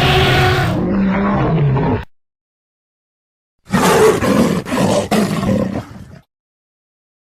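Dinosaur roar sound effects: one rough roar cuts off about two seconds in, and after a gap of dead silence a second roar starts near four seconds and fades out about six seconds in.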